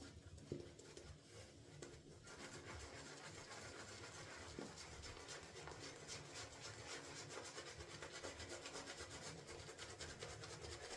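Shaving brush with a 26 mm Maggard mixed knot scrubbing soap lather on the face: a faint, steady, rhythmic swishing of wet bristles that picks up after about two seconds.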